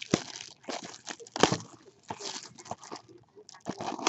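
Crinkling and tearing of plastic shrink-wrap and rustling cardboard as a sealed baseball card hobby box is unwrapped and opened, in irregular crackles with the loudest about one and a half seconds in.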